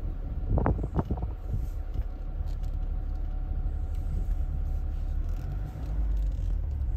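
Low rumble of handling noise on a moving phone microphone, with a few knocks about a second in.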